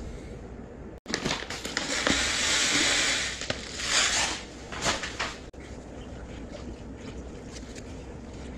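Salt poured in a stream into a glass aquarium of water, making a loud rushing hiss of grains hitting the surface for about four seconds, swelling and easing a few times before it stops abruptly. The salt is being added to bring tap water up to seawater salinity.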